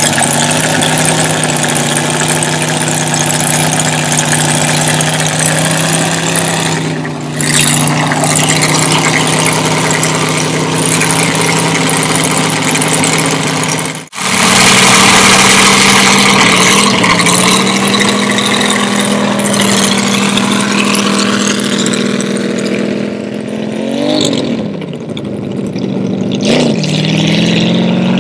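A belly-tank lakester race car's engine runs steadily at the start line. After a cut about halfway, the engine pulls away down the course, its pitch dipping and climbing again twice near the end, as at gear changes.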